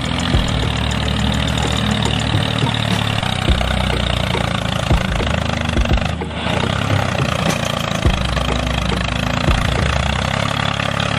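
A small engine running steadily, with a brief dip about six seconds in.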